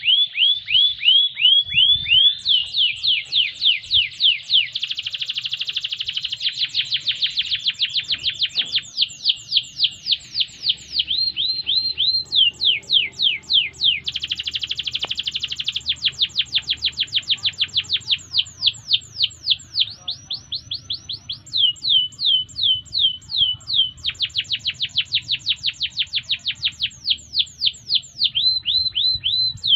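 Domestic canary singing a long unbroken song: fast runs of repeated notes, each note sweeping down in pitch, one run giving way to the next with hardly a pause.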